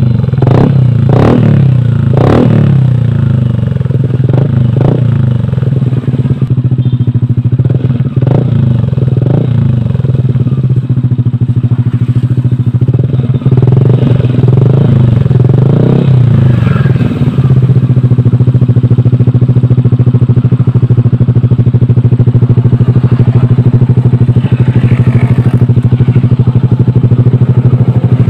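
Yamaha Aerox 155 scooter's single-cylinder engine running through an F2Racing CL M stainless aftermarket exhaust. It is blipped with a series of short throttle revs over roughly the first half, then settles to a steady idle.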